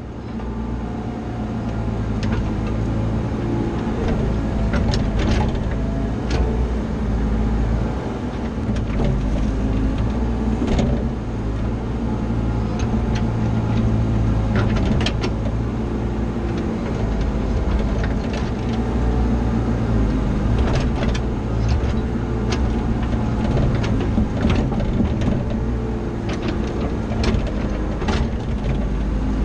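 CAT 304 CR mini excavator's diesel engine running steadily under work. Scattered sharp clanks and knocks come from the bucket and arm working dirt.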